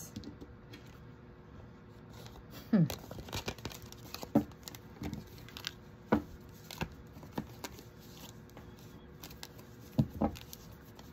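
A deck of tarot cards being gathered and shuffled by hand: irregular crisp snaps and rustles of the card stock, the sharpest about three and four and a half seconds in.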